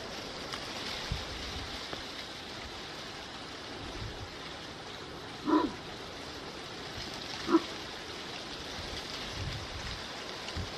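Two short animal calls about two seconds apart, over a steady hiss.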